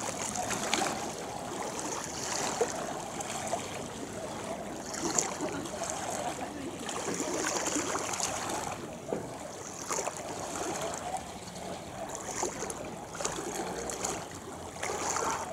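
River water lapping and splashing as a rowing shell passes, with faint swells of splashing every two to three seconds.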